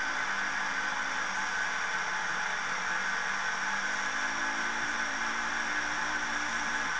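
Model railway turntable turning with a locomotive on its bridge: a steady whirring hiss from its small drive motor.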